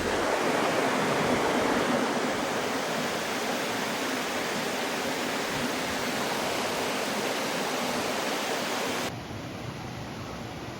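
Steady rush of river water, an even noise with no distinct events; about nine seconds in it drops suddenly to a quieter hiss.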